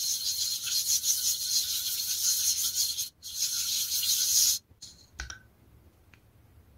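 A 1200-grit sharpening stone is rubbed back and forth with light pressure on a wet granite lapping plate in fine 14/10 abrasive slurry, making a steady gritty hiss. The hiss breaks off briefly about three seconds in and stops about four and a half seconds in, followed by a faint tap.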